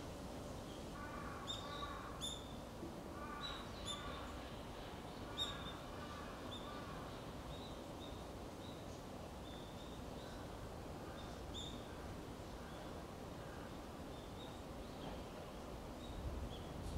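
Crows cawing several times in the first half, under repeated short, high chirps from small birds, over a steady outdoor background hum.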